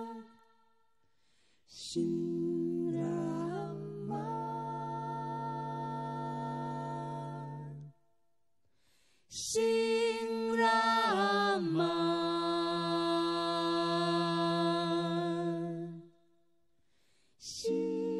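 Five-voice mixed a cappella group singing a Taiwanese Aboriginal song in close, sustained harmony. Three long phrases of held chords, with a few sliding notes, are parted by short silences, and each phrase opens with a quick breath.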